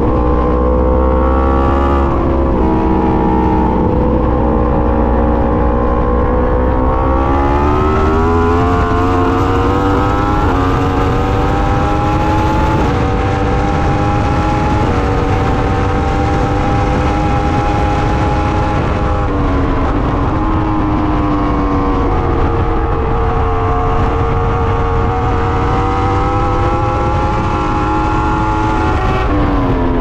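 Yamaha R1's inline-four engine running hard on track, heard from the bike, with rushing noise underneath. The revs climb slowly for the first dozen seconds and hold, drop sharply about twenty seconds in, then climb and hold again before dropping once more near the end.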